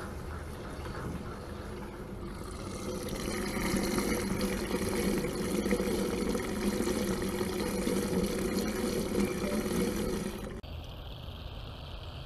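Fuel pouring from a hand-pump delivery hose into a machine's fuel tank through the filler neck: a steady rushing fill that grows louder about two seconds in and cuts off suddenly near the end.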